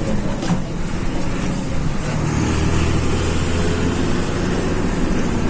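Front-engined bus's diesel engine running close by, a low steady drone that settles into an even hum about two seconds in.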